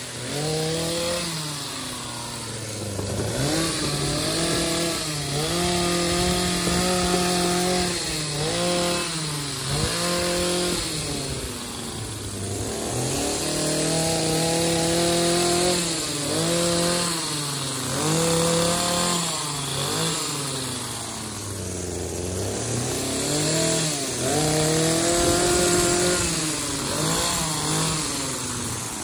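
Petrol-powered pole hedge trimmer running, its small engine revving up and dropping back again and again, every few seconds, as the throttle is worked while cutting the hedge.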